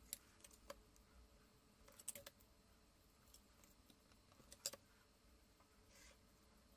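A few faint, scattered clicks and taps of a plastic set square and felt-tip marker being set down, shifted and drawn on a sheet of glass while shapes are marked out.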